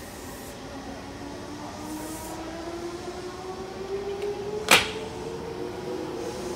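Odakyu 1000-series electric train pulling away from a station platform: its inverter and traction motors give a whine of several tones that rise steadily in pitch as it gathers speed. A single sharp clack about four and a half seconds in is the loudest moment.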